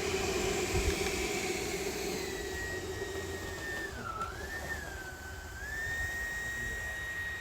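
Motor of an armed RC model jet running at low throttle: a steady high whine that wavers and dips in pitch about four seconds in, over a noisy rushing hum.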